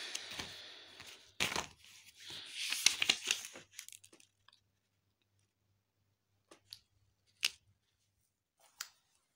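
Paper pages of a spiral-bound notebook being flipped and handled, rustling and crackling through the first few seconds. After that come a few faint clicks.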